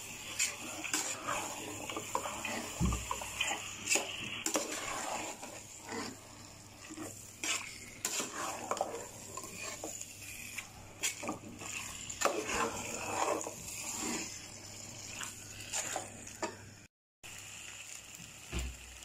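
Long steel spoon scraping and clinking against a metal cooking pot as thick chicken gravy is stirred and turned, in irregular knocks and scrapes.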